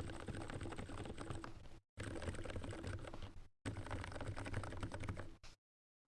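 Fast typing on a mechanical keyboard with lubed Gateron Silent Black linear switches, a dense run of soft key clicks in three stretches split by brief dropouts, stopping abruptly about five and a half seconds in. A steady electrical buzz from the microphone runs under the typing.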